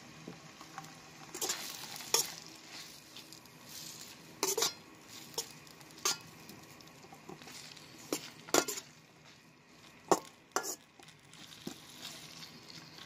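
Sliced hotdogs and ground meat frying with a low sizzle in a nonstick pan while being stirred. The stirring utensil scrapes and knocks against the pan about seven times, every second or two.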